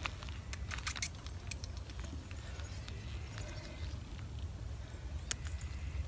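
A steady low rumble with no clear pitch, with a quick run of sharp clicks about a second in and a single sharp click near the end.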